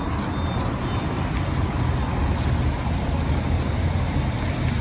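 Street traffic noise, with the steady low hum of a vehicle engine running close by.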